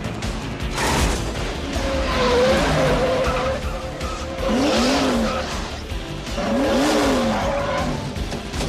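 NASCAR stock cars running at race speed, tires squealing and skidding several times as a car slides out of control and is caught, with film score music underneath.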